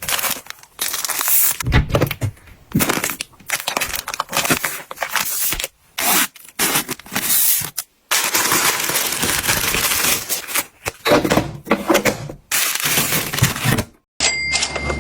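Plastic packaging being handled: crinkling, rustling and tearing in short bouts, with a couple of brief breaks.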